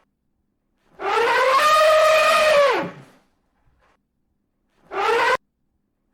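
Elephant trumpeting: one call of about two seconds that rises, holds its pitch, then drops away at the end, followed near the end by a short trumpet blast that cuts off abruptly.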